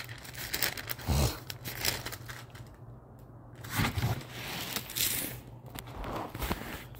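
Bible pages being turned and leafed through, rustling on and off, with a couple of soft bumps as the book is handled.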